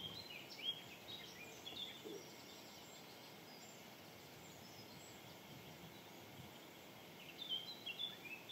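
Faint songbird song, two bursts of short, high chirps, one at the start and one near the end, over a soft, steady background hiss.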